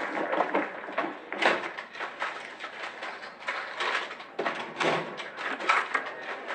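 Drawers of a small wooden chest being pulled open and rummaged through, a run of irregular knocks and clatters.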